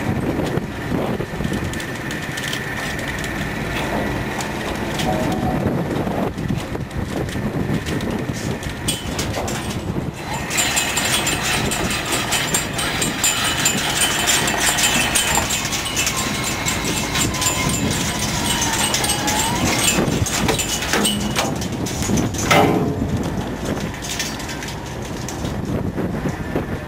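Working noise on a small fishing boat's deck at sea: engine running under wind and water, with many small clicks and rattles of gear, busier from about ten seconds in.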